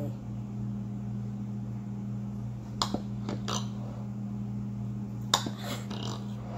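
A table knife clicking and clinking against a plate a few times, about four light knocks close together in the middle and one sharper clink later, while a slice of frosted layer cake is cut and lifted out. A steady low hum runs underneath.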